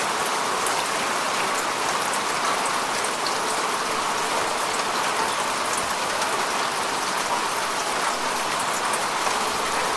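Steady falling rain, an even hiss with the patter of many individual drops hitting a surface.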